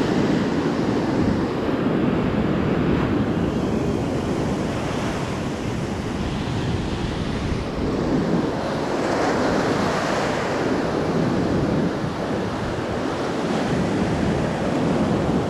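Small surf waves breaking and washing up the sand at the shoreline, a steady wash with wind buffeting the microphone.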